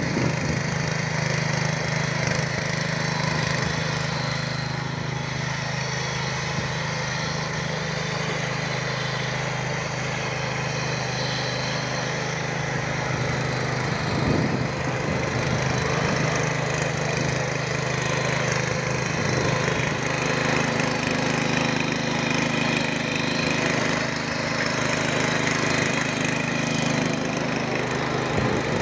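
Walk-behind rotary tiller's engine running steadily under load while its tines churn and throw the soil.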